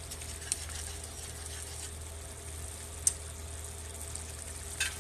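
Pork in bagoong sauce with vinegar simmering and sizzling in a metal wok, a steady soft hiss with a few light clicks, the sharpest about three seconds in.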